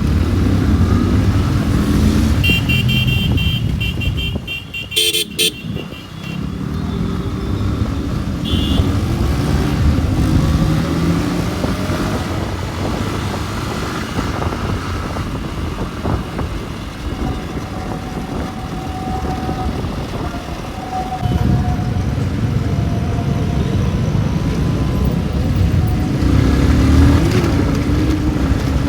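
Motorcycle engine and road rumble while riding in city traffic, with a vehicle horn honking in a quick series of beeps a few seconds in and a short toot a few seconds later.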